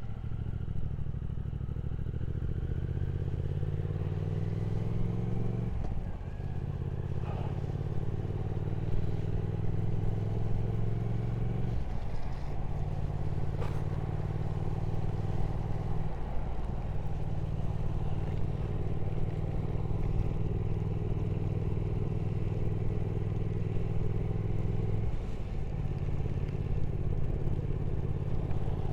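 Triumph Speed Twin 1200 parallel-twin engine running at road speed under wind noise. Its pitch climbs over the first several seconds, and there are brief breaks at gear changes about four times before it settles into a steady cruise.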